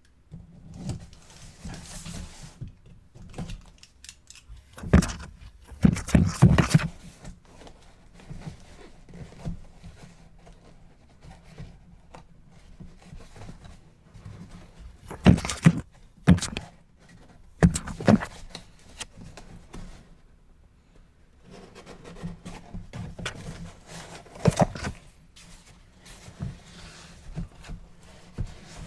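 Product packaging being opened and unpacked by hand: rustling and sliding with a scattering of sharp knocks and clicks, the loudest about five to seven seconds in and again around fifteen to eighteen seconds.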